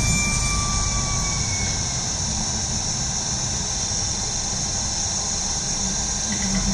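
Mercedes-Benz Citaro G articulated city bus heard from inside while driving: diesel engine and driveline running with road noise and a steady high hiss. A faint whistling tone fades out about a second and a half in.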